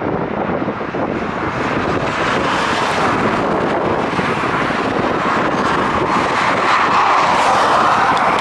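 Steam-hauled train running across a steel arch bridge, a steady rumbling rush that swells a little in the last few seconds, mixed with wind on the microphone.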